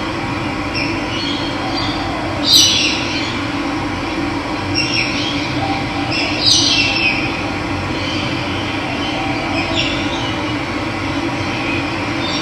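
Steady rush of running water, with birds calling over it: about five short calls that fall in pitch, the loudest a little over two seconds in and again about six seconds in.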